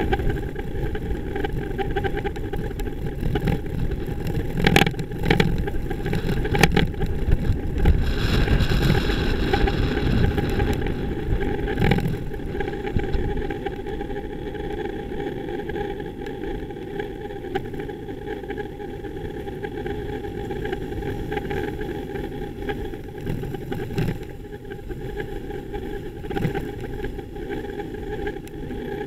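Steady rumble of a bicycle rolling through city traffic, picked up by a camera mounted on the bike, with car and bus engines running close by. A few sharp knocks come in the first dozen seconds.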